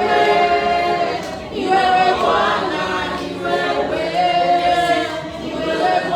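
A congregation or choir singing together without accompaniment, mixed voices holding long sung notes.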